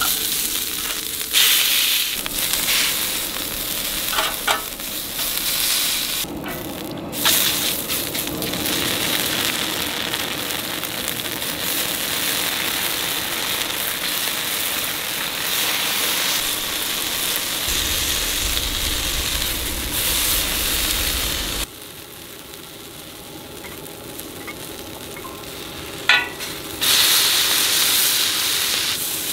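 Skewers sizzling in oil on a hot flat steel griddle, with a metal spatula scraping and knocking on the plate now and then. The sizzle drops to a quieter level about three-quarters of the way through.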